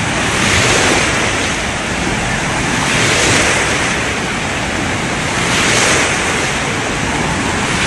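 Loud rushing, crashing water that swells and eases about every two and a half seconds, like waves breaking.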